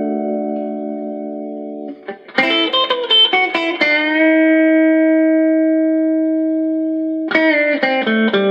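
Electric guitar (Telecaster) played through a compressor pedal into a small tube amp. A held note fades, then about two seconds in a quick run of notes lands on a long, evenly sustained note, and another quick run follows near the end. The compressor keeps the notes level and lengthens the sustain.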